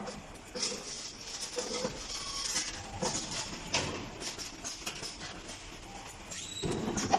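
CNC flat bar bending machine at work, with irregular metal knocks and clicks about once a second over a steady background hum and a short high squeak near the end.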